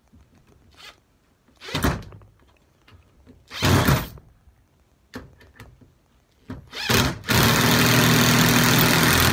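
Cordless drill driving a long screw into a wooden sled runner: two short bursts of the motor, a few small clicks, then one steady run of about two seconds near the end as the screw goes in.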